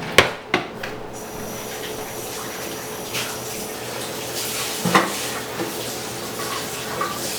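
Sharp clicks and knocks of hard plastic parts being handled and pressed together while the LCD screen is fitted into the radio display's plastic front frame: two quick clicks just after the start and a louder knock about five seconds in, over a steady hiss.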